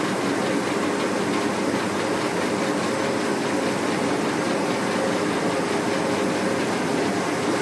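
Copper strip upcasting machine running, a steady mechanical din as the strip is drawn up out of the mold, with a faint steady hum.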